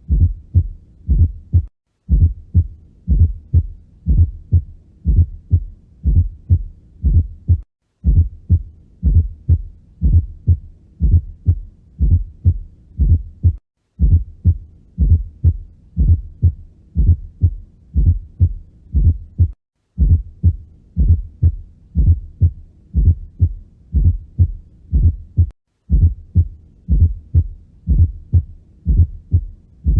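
Heart sounds heard through a stethoscope: low, dull thuds in a steady rhythm with a fourth heart sound (S4, atrial gallop) just before each first sound. The recording repeats about every six seconds with a brief break.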